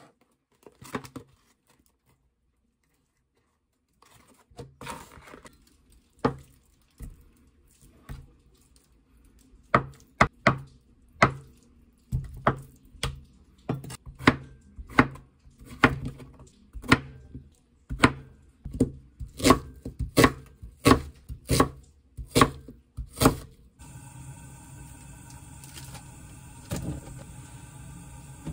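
Kitchen knife chopping a zucchini on a wooden cutting board, sharp chops at a steady pace of one to two a second. Near the end the chopping stops and a steady hiss takes over.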